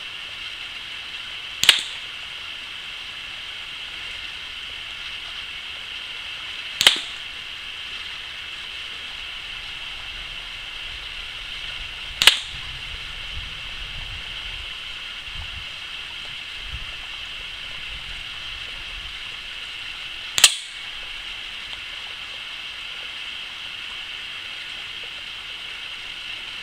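Four shots from an Air Arms Pro Sport .177 spring-piston air rifle, spaced several seconds apart, each a short sharp crack over a steady background hiss.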